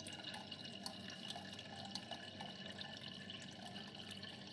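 Faint water trickling and dripping inside a Jaquar concealed toilet cistern tank, with many small irregular drips over a steady wash of running water.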